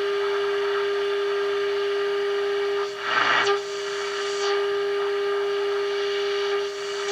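AM tube radio speaker playing a steady test tone, about 400 Hz, from a signal generator during IF/RF alignment, over a background of static hiss. A louder burst of static comes about three seconds in and a smaller one just before the end.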